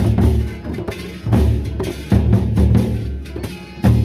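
Gendang beleq, large Sasak barrel drums, beaten in a fast interlocking rhythm: clusters of deep drum strokes with sharper higher hits between them.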